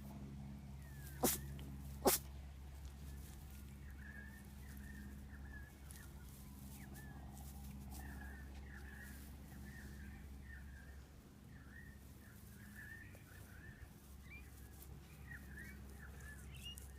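Dachshund puppy sneezing twice, two short sharp sneezes under a second apart a little over a second in, over a steady low hum and scattered short high chirps.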